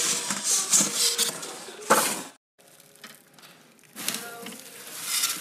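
Styrofoam packing insert squeaking and scraping against the cardboard box as it is handled, in rough crackly bursts. The sharpest comes about two seconds in, the sound breaks off just before two and a half seconds, and more scraping follows from about four seconds in.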